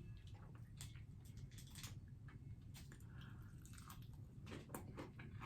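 Faint close-up chewing of fried food: soft mouth clicks and small crunches, coming more often near the end.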